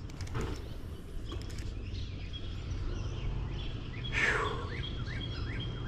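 Wild birds chirping over a steady low rumble, with one louder downward-sliding call about four seconds in, followed by short repeated chirps.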